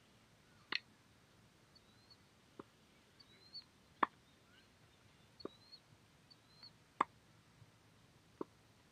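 Tennis ball hits and bounces during a rally: six sharp, hollow pops of the ball off strings and court, about one and a half seconds apart, heard faintly from across the court.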